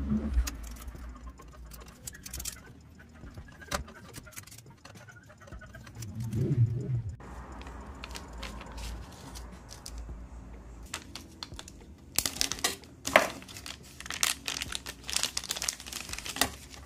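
Clear plastic bag crinkling and rustling as it is handled and opened, with light clicks from the flat case panels inside, busiest in the last few seconds. A brief low sound about six seconds in.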